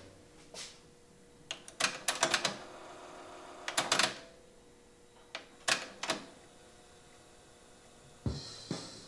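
Philips DCC771 double cassette deck: several clusters of clicks and clunks from its buttons and tape transport mechanism. About eight seconds in, music starts playing back from the analog ferro cassette, quieter than it was recorded.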